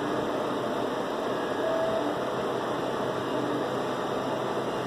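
Steady noise with a faint hum, even throughout, with no distinct events.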